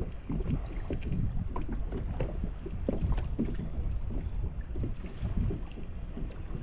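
Water lapping and splashing against a kayak hull in short irregular slaps, with wind rumbling on the microphone.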